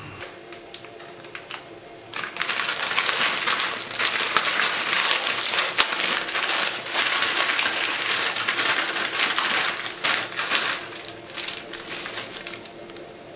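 Foil-lined plastic instant-noodle packet crinkling loudly as hands open and handle it, starting about 2 seconds in and dying away near the end.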